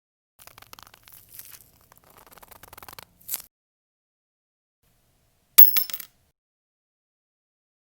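A quick run of small clicks and rattles that grows louder over about three seconds and ends in a brief sharper hit; after a pause, a single sharp clink rings for about half a second.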